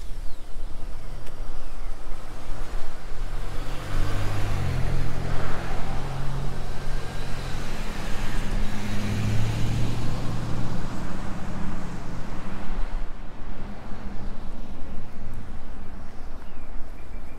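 A car driving past on the street: engine hum and tyre noise build from about three seconds in, are loudest in the middle, and fade away near the end.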